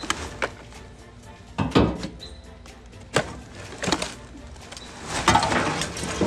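Plastic trash bags rustling and loose garbage clattering as trash is dragged out of a tipped-over trash can with a pole. There are several sharp knocks and a longer, louder rustle near the end.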